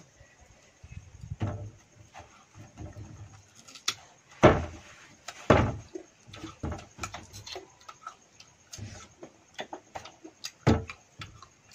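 People biting into and chewing crisp, not-yet-ripe guavas: a run of irregular crunches and clicks, with louder bites about four and a half, five and a half and ten and a half seconds in.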